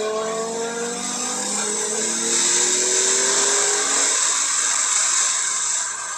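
2021 Porsche 911 Carrera 4S's twin-turbo flat-six pulling hard in third gear, its pitch rising steadily, then dropping away about four seconds in as the car lifts off and brakes. From about two seconds in, a loud hiss of tyre spray off the standing water on the track rises over the engine and fades near the end.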